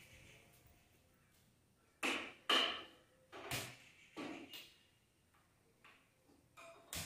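Steel cooking pots and a wok clanking on a gas stove as they are handled and set down: a run of separate knocks with a short metallic ring, starting about two seconds in.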